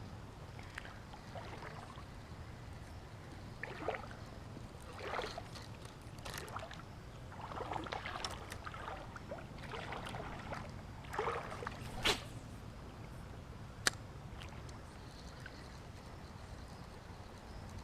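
Faint running creek water with irregular rustles and small splashes. Two sharp clicks come in the later part.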